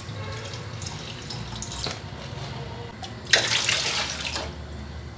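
Liquid poured from a plastic jug into a metal cooking pot that already holds liquid, splashing steadily, with a heavier, louder gush about three seconds in that lasts about a second.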